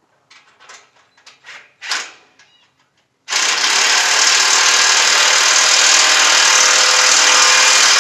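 A few light knocks and clinks, then a handheld power tool starts a little over three seconds in and runs steadily for about five seconds while bolting together the steel sections of a hay ring.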